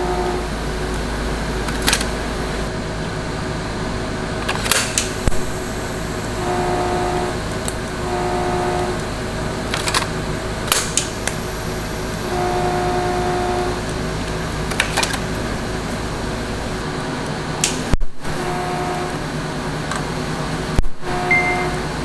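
TIG welding torch striking short arcs to tack-weld steel rods of a grill grate in a jig: a series of brief pitched buzzes, each lasting half a second to a second and a half, over a steady workshop hum, with a few sharp clicks between them.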